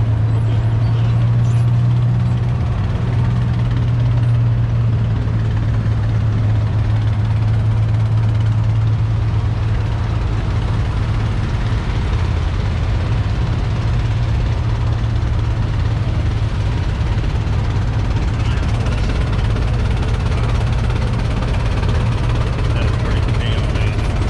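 Small vehicle engine running at a steady speed, a constant low hum with rumble beneath it.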